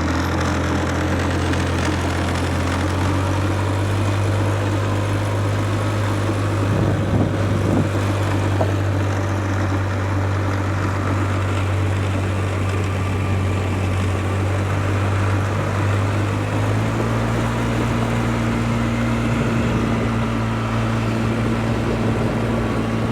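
Loud ATV engine running steadily as it drives along, its pitch stepping up slightly about two-thirds of the way through.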